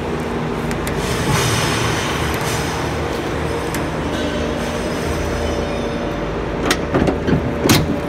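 A truck driving: steady engine and road noise, with a few sharp knocks or rattles in the last couple of seconds.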